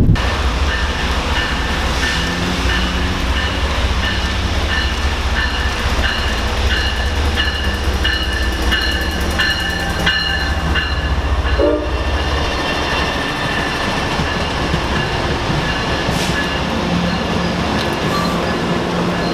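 Passenger train passing close by, with a steady low rumble for about the first twelve seconds that then eases as the cars run by. High metallic ringing tones come and go throughout.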